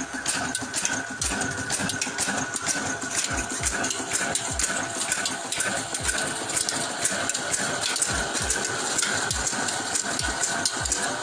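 Old stationary diesel engine with a large spoked flywheel running slowly, firing in low, unevenly spaced thuds about once a second over a continuous mechanical clatter. It is driving a well water pump.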